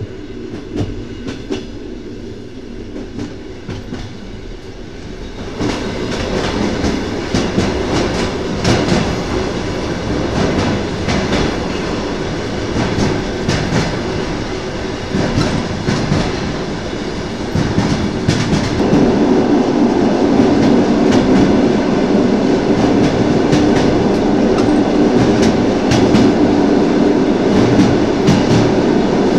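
Train wheels clattering over rail joints, heard from the carriage by the window, with a steady run of clicks over the rumble of the running train. It gets louder about five seconds in and again near the end.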